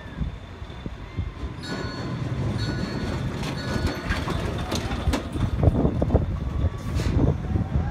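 Zipline trolley wheels running down the steel cable: short bursts of high squealing from about two seconds in, then a rapid clatter that grows louder as the riders come near. Wind buffets the microphone.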